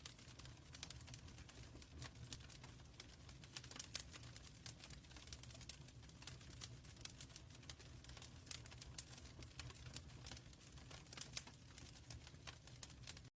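Wood fire crackling in a fireplace: irregular sharp pops and crackles over a low rumble of burning. Near the end it cuts off suddenly.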